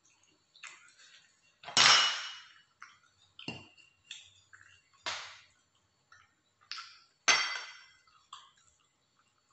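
Clinks and knocks of dishes on the table as food is handled on a ceramic plate: a handful of sharp separate hits, with the two loudest, ringing ones about two seconds in and about seven seconds in.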